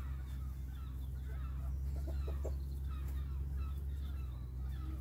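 Chickens clucking intermittently in the background over a steady low hum, with two soft knocks a little after two seconds in.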